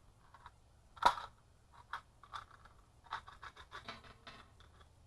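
Handling noise from an AK-pattern rifle and its magazine: one sharp metallic click about a second in, then a quick run of small clicks and scrapes.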